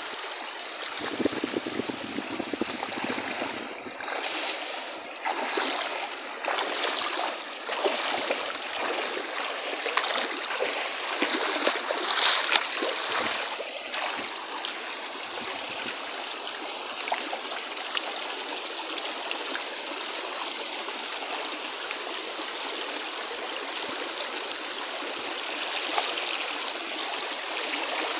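Shallow rocky stream running steadily over stones, with irregular splashing from about four seconds in until about halfway through, loudest near the middle, as someone wades and works with his hands in the water.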